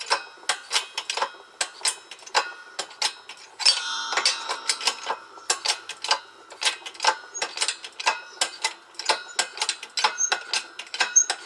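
Wheel bearing being pressed out of a G60 Corrado cast-iron spindle in a shop press: a steady run of sharp metallic clicks and ticks, several a second, as the bearing slowly creeps out, with a denser flurry of clicks about four seconds in.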